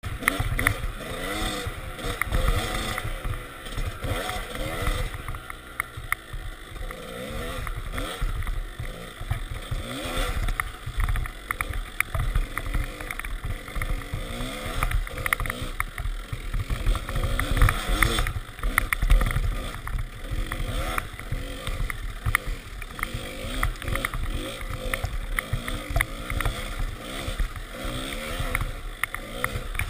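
Kawasaki KDX 200 dirt bike's two-stroke single-cylinder engine revving up and down again and again as it is ridden through snow, the pitch rising and falling with each throttle blip and gear change.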